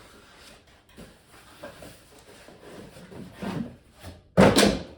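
Cardboard box and packaging rustling and rubbing as the contents are pulled out, with one loud, rough scrape about half a second long a little after four seconds in.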